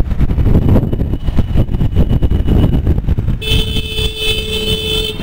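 Wind buffeting the microphone and road noise while riding an Aprilia SR 150 scooter in traffic. About three and a half seconds in, a vehicle horn sounds with a steady tone and is held for nearly two seconds.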